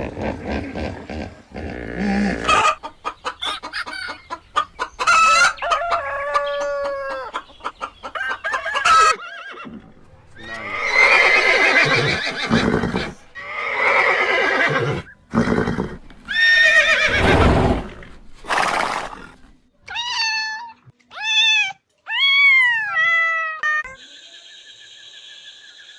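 A run of different farm animal calls, one after another, with short gaps between them; chicken and rooster calls are among them.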